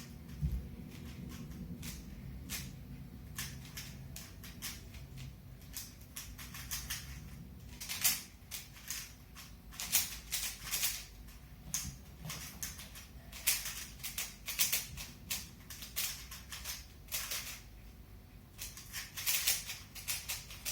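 Rubik's cube being turned rapidly during a speed-solve: the plastic layers click and clack in quick irregular flurries, with short pauses between runs of turns.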